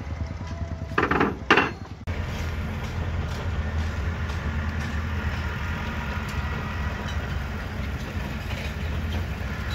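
Two loud metallic clanks from work on a steel rebar column cage, about a second in, followed by the steady low hum of an engine running.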